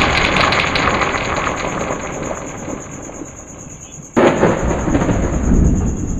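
A rumbling sound effect under the title cards, fading away over about four seconds, then a second rumble that starts suddenly about four seconds in and stops near the end. A steady high whine runs under both.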